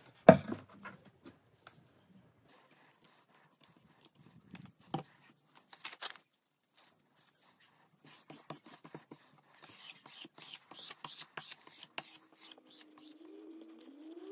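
A wooden board knocks once as it is set down on a plywood workbench, followed by light scattered handling clicks. Later comes a quick, even series of rubbing strokes, about three a second, as gloved hands smooth a printed plastic film onto the board. A faint hum rises in pitch near the end.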